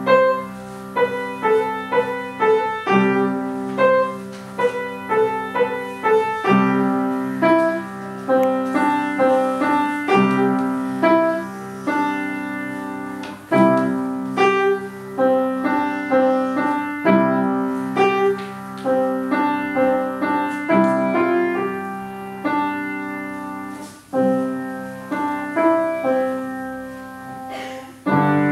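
Upright piano played solo: a steady stream of struck melody notes over lower held chords.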